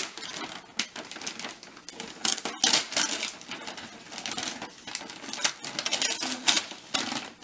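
Gift wrapping paper rustling and tearing in irregular crackling bursts.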